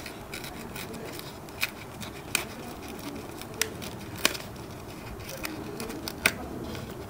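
Wrapper of a BoBoiBoy Galaxy Card trading-card pack being peeled open by hand: low rustling with several sharp, irregular crackles.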